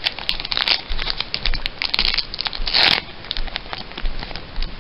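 Foil Pokémon trading-card booster pack being crinkled and torn open by hand: a run of quick crackles, with a louder burst just before three seconds in.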